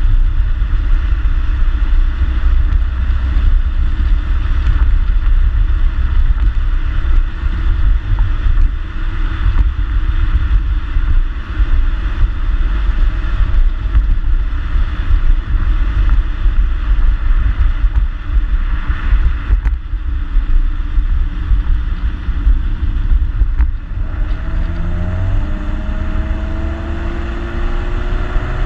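2014 Ford Mustang's 3.7-litre V6 through its stock exhaust while driving, a steady low rumble with road and wind noise. About 24 seconds in, the engine note climbs in pitch as the car accelerates.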